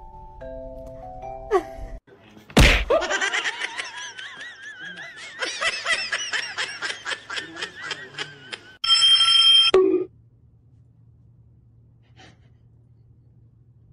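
Short melodic notes like mallet percussion, then a sharp thud. A long warbling, wavering high-pitched sound with a fast flutter follows, cut off by a loud bright electronic chime about nine seconds in. After that only faint room sound remains.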